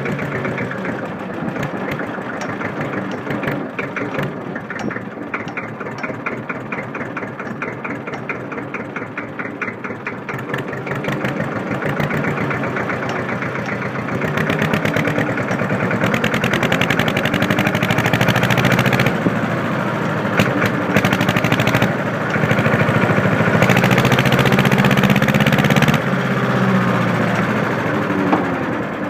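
Deutz F2L612 two-cylinder air-cooled diesel running through its exhaust. It idles with distinct, evenly spaced firing beats for the first few seconds. Then it is revved up, rising in level about halfway through and easing off briefly between stretches of higher revs.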